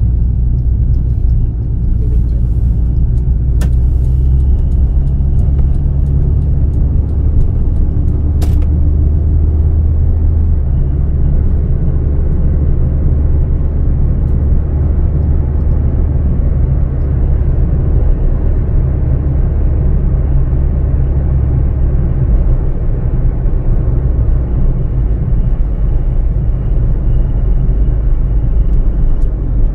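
Proton Gen-2 car running, with a loud steady low engine and road rumble whose pitch shifts about ten seconds in. A faint high whistle comes and goes over it: the whistling noise whose source the owner cannot find. Two sharp clicks are heard in the first ten seconds.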